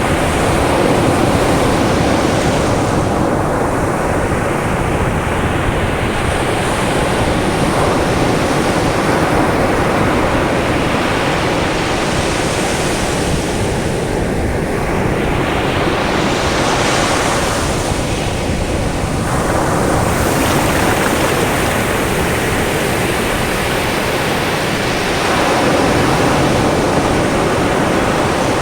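Caribbean sea surf breaking and washing up a white-sand beach: a continuous rush, with a fresh wave swelling up every few seconds.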